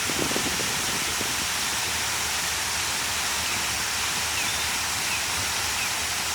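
Waterfall, a steady rushing of falling water.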